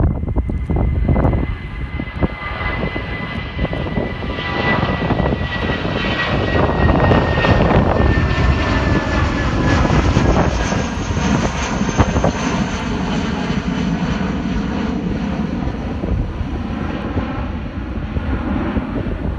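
Jet engines of a British Airways Airbus A320-family airliner climbing out after takeoff: a steady roar with a thin whine that slowly falls in pitch as the aircraft passes overhead and away. Wind gusts on the microphone in the first couple of seconds.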